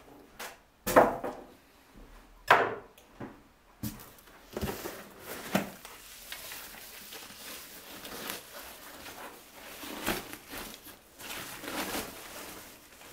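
Polystyrene packing and foam-wrapped monitor being handled in a cardboard box: several sharp knocks and scrapes in the first few seconds, the loudest about two and a half seconds in, then steady rustling and rubbing of foam sheet and plastic as the monitor is lifted out of its polystyrene insert.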